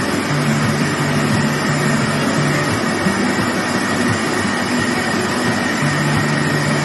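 Automatic cutting machine running: a steady rushing noise with a thin whine, and low motor hum that shifts pitch in steps as it works.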